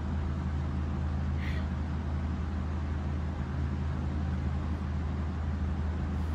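Steady low hum that runs unchanged throughout.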